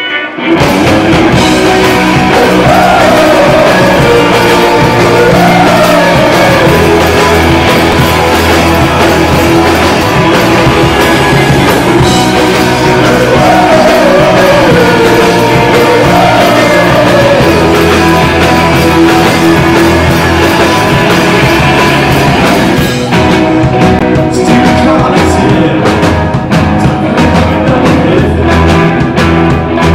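Rock band playing live: electric guitars, bass and drum kit, with a sung vocal line coming in twice over the band.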